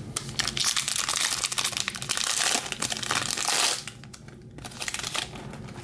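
Foil trading-card pack wrapper crinkling and tearing as the pack is ripped open; the crackling is loud for nearly four seconds, then drops to faint scattered rustling.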